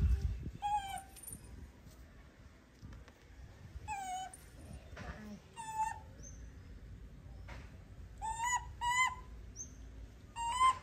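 Kittens mewing: about seven short, thin calls, each bending up and then down in pitch, with three close together late on. A low thump comes right at the start.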